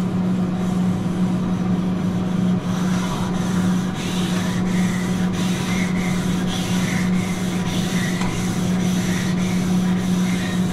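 Grill brick scrubbed back and forth across a flat-top griddle, a regular rasping stroke about one and a half times a second that settles in a few seconds in, over a steady low hum.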